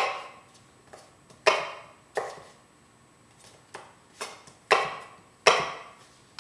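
Kitchen knife rough-chopping an apple on a wooden cutting board: irregular sharp chops of the blade hitting the board, about five loud strikes among lighter taps.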